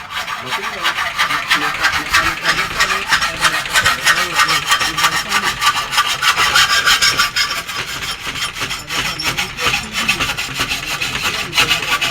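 Continuous, rapid rasping strokes of a hand tool worked back and forth against a hard surface, fading out just after the end.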